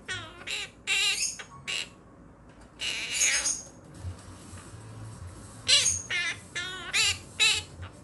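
Quaker parrots (monk parakeets) making short, harsh chattering calls in quick bursts. There is a cluster in the first two seconds, a longer burst about three seconds in, and a rapid string of calls near the end.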